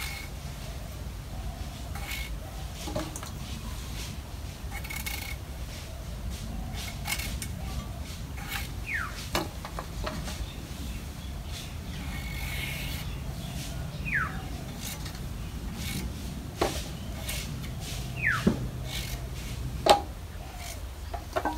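Potatoes being cut on a bonti, the foot-held Bengali cutting blade: soft rubbing and slicing sounds, with scattered sharp clicks and knocks as pieces go into a steel bowl.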